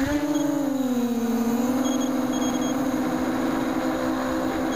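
Mini FPV quadcopter's DYS 1806 brushless motors and 6x4.5 Gemfan props whining as it takes off and flies. The pitch climbs and dips slightly at the start, then holds as a steady whine of two close tones.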